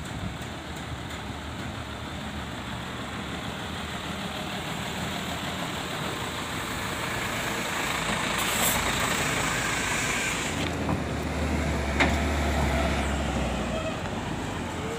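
Diesel engine of a Hino truck hauling an excavator on a lowboy trailer, running and growing louder. There is a short hiss of air about halfway through, then a deep engine drone a few seconds later as the loaded rig moves off.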